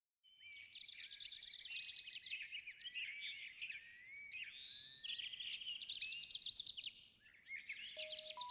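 Small songbirds chirping and twittering in a dense, overlapping chorus of quick high notes, with a short lull about seven seconds in. Near the end a few steady, lower musical notes come in under the birdsong.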